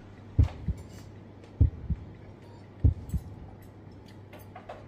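Heartbeat sound effect: three pairs of low thuds, one pair about every 1.25 s, stopping a little past three seconds in, over a steady low hum. A few faint clicks come near the end.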